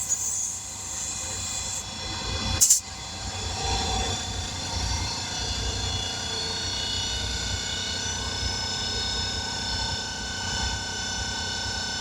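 A machine running steadily, a low rumble with several fixed whining tones. Near the start there is a short hiss, and a sharp clack about three seconds in.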